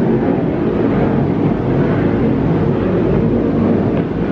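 Engines of offshore racing powerboats running past, heard from the shore as a loud, steady low drone.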